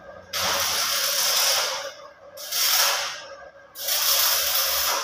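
Stick arc welding on mild steel: the electrode's arc crackling and hissing in three runs, each starting suddenly, from under a second to about a second and a half long, with short breaks between.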